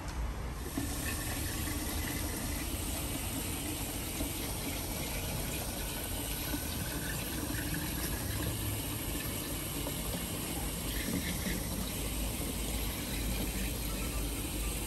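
Tap water running from a wall faucet into a large plastic water jug, a steady stream filling it; the flow starts well under a second in.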